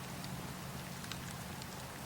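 Wood fire in a fireplace crackling: a steady hiss with a few small, scattered pops.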